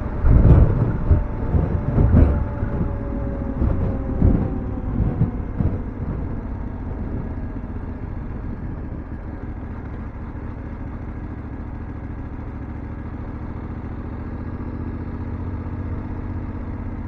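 BMW F750GS motorcycle's parallel-twin engine running on the move. Over the first few seconds the engine note falls slowly as the bike slows, with a few thumps. After that it settles into an even low drone.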